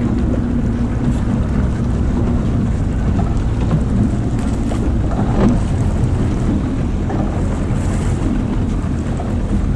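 Steady wind buffeting the camera microphone over the low, even hum of the boat's engine and the sea.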